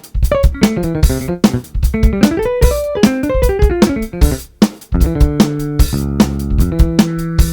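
Polyphonic ringtone tune with plucked guitar and bass sounds over a drum beat. Fast runs of notes climb and fall, then change to held chords about five seconds in.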